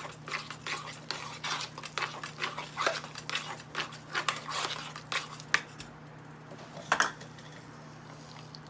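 A metal spoon scraping and clinking against a stainless steel saucepan as thick mashed potatoes are stirred and beaten, in quick repeated strokes. The stirring stops about five and a half seconds in, and there is one sharp knock about a second later.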